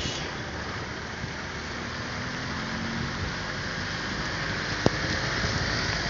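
Steady rain falling, an even hiss, with a single sharp tap about five seconds in.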